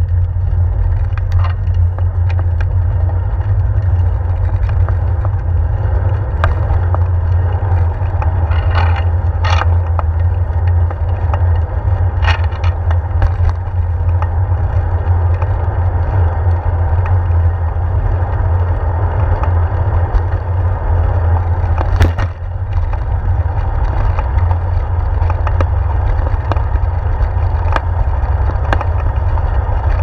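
Bicycle riding recorded through a handlebar-mounted GoPro: a steady low rumble of wind and road vibration as the bike rolls along, with scattered sharp knocks from bumps in the pavement, the loudest about 22 seconds in.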